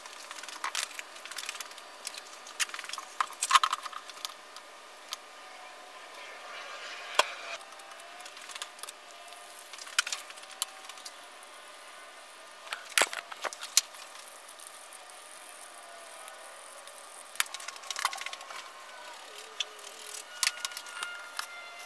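Fast-forwarded workshop handling sounds of a carbon-fibre wet layup: many quick, scattered clicks, taps and knocks as jugs, cups, tools and fabric are picked up and set down, over a steady hiss.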